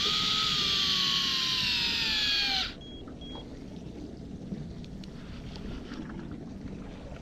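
Electric jigging reel's motor winding with a high whine that slowly drops in pitch, then cutting off suddenly about two and a half seconds in; two short beeps follow. After that only a low, steady boat and water noise remains.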